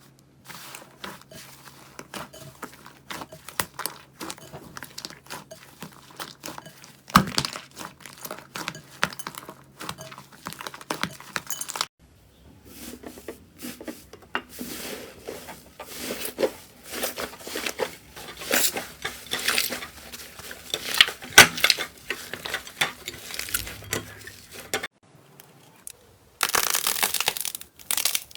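Slime being squeezed and stretched by hand, a dense run of sticky crackles and small pops. The clips change abruptly a few times, and the last one is louder and crunchier.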